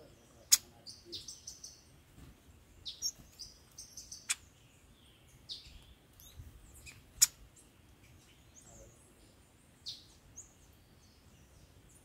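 Small songbirds calling with short, high chirps, cut by three sharp, loud ticks a few seconds apart that stand out above the rest.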